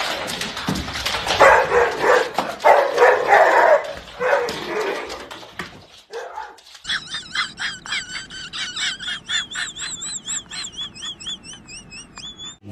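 A dog barking several times, then a fast run of high, wavering chirps that lasts until near the end.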